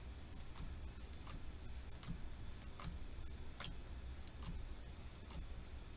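Light, irregular clicks and ticks, the loudest about three and a half seconds in, over a low steady hum.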